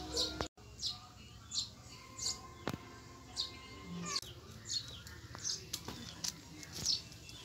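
A bird chirping outdoors, short high downward-sliding chirps repeated about once a second.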